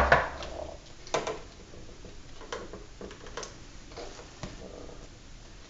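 Handling noises as a vinyl graphic is pressed and smoothed onto plastic: a sharp knock at the start, then scattered light clicks and rubbing.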